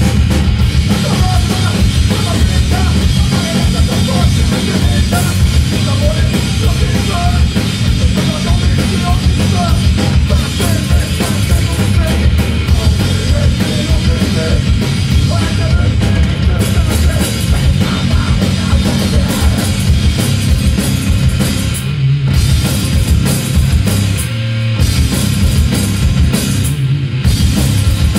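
Live punk rock band playing loud: distorted electric guitars, bass guitar and a pounding drum kit.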